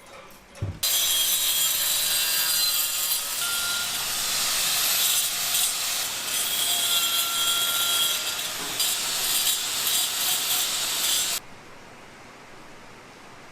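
Loud, harsh abrasive noise of a tool scraping against a surface. It starts abruptly about a second in and cuts off suddenly near the end, with a few brief whining tones mixed in.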